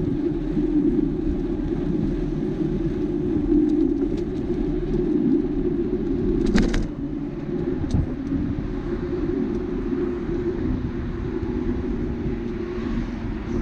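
Steady low rumble of a bicycle rolling along an asphalt cycle lane, with a sharp knock about six and a half seconds in and a smaller click a second and a half later.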